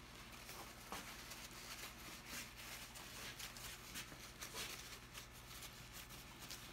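Faint rustling and light ticking of things being handled at a workbench, over a steady low electrical hum.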